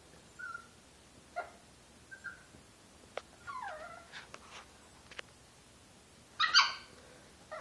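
Chihuahua vocalizing playfully, the 'talking' of a dog at play: a string of short whines and yips, one dropping in pitch about halfway through, with a few light clicks, and a louder, higher yip near the end.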